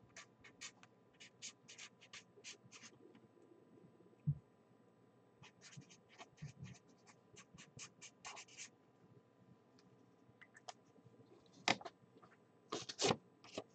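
Pen writing on paper: faint, quick scratchy strokes in two runs, with a soft thump about four seconds in and a few louder clicks near the end.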